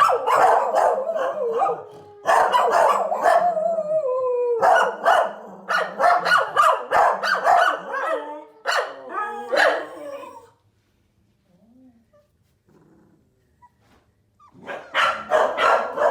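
Puppies barking and whining in quick, high calls, some sliding down in pitch; they stop about ten seconds in and start again near the end.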